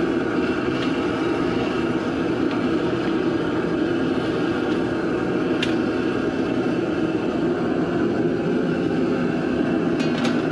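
Propane burner under a large boil pot running steadily. A few short clicks cut through it, two close together near the end.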